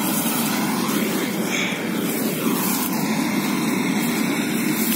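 Combine harvester running steadily as it harvests a rice crop, a constant even engine drone.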